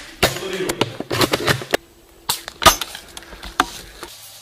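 Sharp airsoft gun shots: several separate snaps at irregular intervals, the loudest about two-thirds of the way through.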